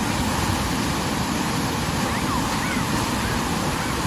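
Steady rush of pumped water from a surf-simulator wave pool, a thick sheet of water pouring up the slope and breaking into white foam without letup.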